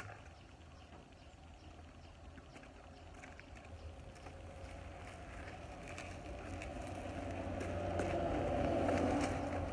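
A vehicle engine passing: it grows steadily louder through most of the clip, peaks near the end and then begins to fade, over a low steady hum. A single sharp knock at the very start, and scattered light clicks.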